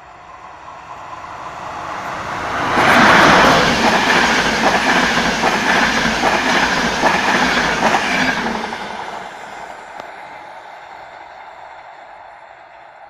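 Express passenger train passing at speed. Its rush of noise builds as the locomotive approaches and is loudest as it passes about three seconds in. The coaches' wheels then click steadily over the rail joints, and the noise fades away as the train recedes.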